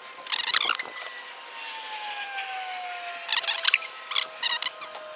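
Ratchet wrench being worked in three short bursts of rapid clicking, a few strokes each.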